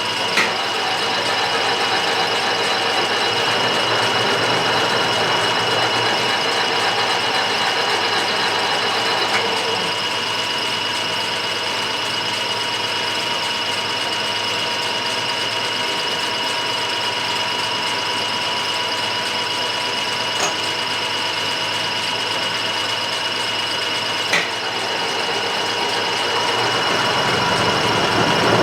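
Milling machine running, its cutter taking a light, one-thousandth-deep pass across a metal workpiece: a steady machine whine with a few faint ticks, growing louder near the end.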